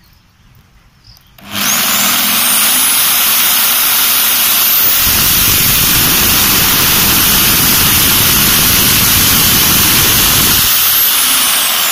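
Bosch GST 90 BE corded jigsaw with a 650-watt motor. It starts up about a second and a half in and runs loud and steady. From about five seconds in to almost eleven, the blade cuts through a thin wooden board, adding a lower, rougher layer under the motor noise.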